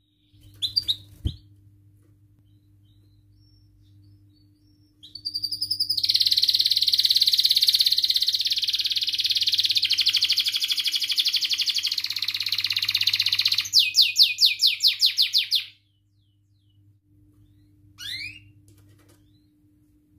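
Domestic canary singing: a few short high notes, then a long, fast, unbroken trill of about eight seconds, followed by a run of rapid repeated notes and, after a pause, a couple of short rising chirps near the end.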